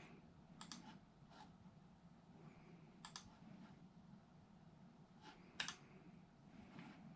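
Faint, scattered clicks of computer keys being pressed, a few at a time, the loudest about five and a half seconds in, over a low steady hum.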